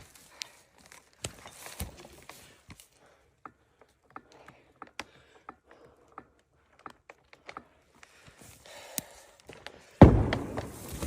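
Scattered light cracks and knocks of wood, then a sudden heavy crash about ten seconds in as a felled tree hits the ground.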